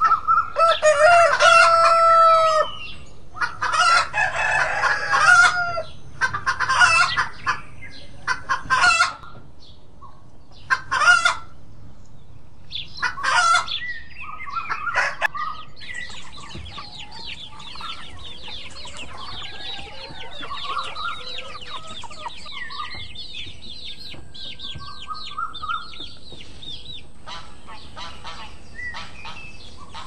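Rooster crowing: a long crow at the start, then several shorter calls over the first ten seconds or so. From about halfway on, a brood of quail chicks peeps rapidly and without a break.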